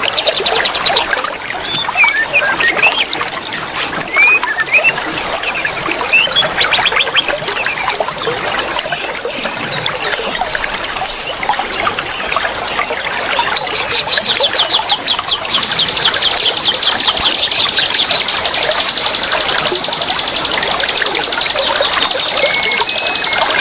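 A chorus of many young wild forest birds chirping and calling over a steady trickle of water. About fifteen seconds in, a dense, fast, high buzzing trill joins and carries on.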